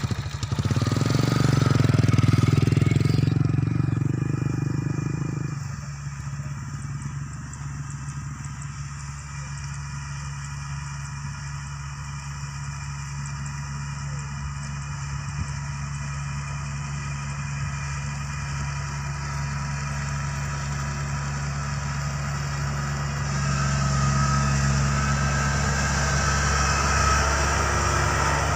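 Kubota combine harvester's diesel engine running: loud for the first few seconds, dropping to a steady run about six seconds in, and growing louder again a little past twenty seconds.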